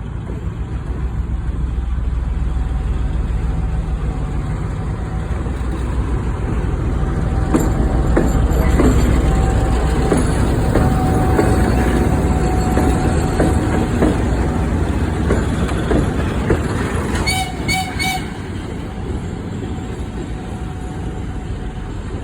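2M62 diesel locomotive's two-stroke V12 diesel engines running steadily as it rolls in, with wheels knocking over the rails for several seconds in the middle. A few short horn toots sound near the end.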